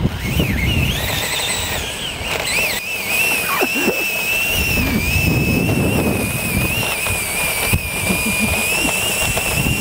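Cordless drill motor driving a home-built scooter in first gear: a high whine that climbs in the first second as it gets up to speed, then holds with a slight waver. Under it is the rumble of small scooter wheels rolling on asphalt.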